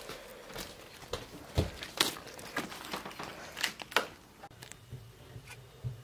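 Handling sounds from a head of lettuce being picked up and put away: short crinkly rustles of the leaves and light knocks, about eight of them at uneven intervals over a faint hiss.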